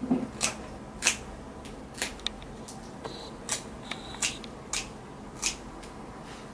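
Plier-style cat claw clippers snipping through a cat's claws one after another: a quick series of sharp snips, about two a second.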